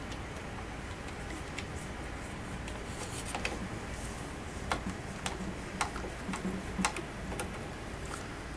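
Light, irregular clicks and ticks of a screwdriver and screw working against a plastic rifle hand guard, over a steady low hum.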